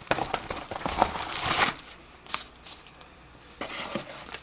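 Crinkling and rustling of a yellow padded paper mailer envelope as hands dig around inside it, heaviest for the first two seconds, then a few lighter, shorter rustles.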